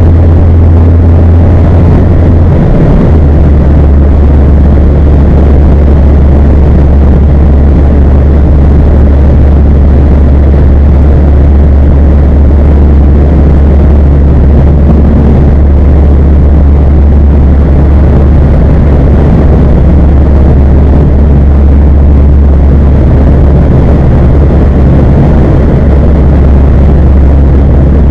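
A 2016 Mazda 3 GT's engine running through twin Spintech Super Pro Street 9000 mufflers with a K&N air filter, giving a loud, steady, deep exhaust drone. The drone steps slightly lower in pitch about three seconds in.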